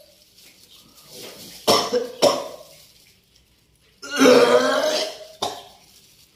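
A person belching and coughing hard in four sudden bursts, the third a long, strained belch of about a second.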